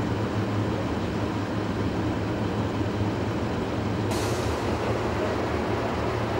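Diesel engine of a DANA self-propelled howitzer idling steadily, a low hum. A brief hiss comes in about four seconds in.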